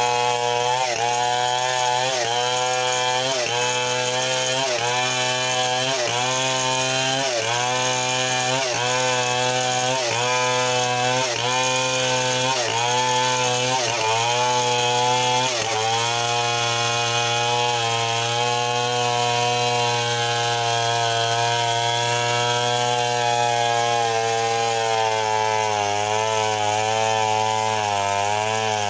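A large two-stroke chainsaw, a Stihl 070-type saw (MS 720), running at full throttle while ripping a log lengthwise into a plank. The engine note dips and recovers a little more than once a second as the saw is pushed into the cut, then holds steadier past the halfway point before wavering again near the end.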